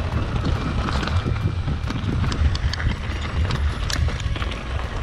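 Mountain bike riding down a dirt forest singletrack: a steady low rumble of tyres on the trail, with the bike rattling and clicking irregularly over the rough ground.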